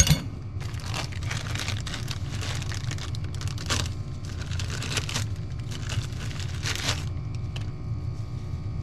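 Plastic packaging crinkling and rustling in gloved hands as new clutch friction discs are unwrapped, in irregular bursts that die down about seven seconds in. A steady low hum runs underneath.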